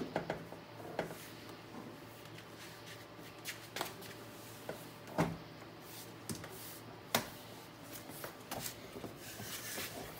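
A car door panel being handled and pressed against the door: rubbing and rustling with scattered clicks and knocks, the sharpest about five and seven seconds in.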